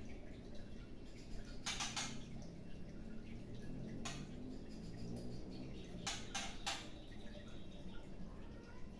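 A few short, sharp clicks from a caged white-rumped shama, over a low steady hum.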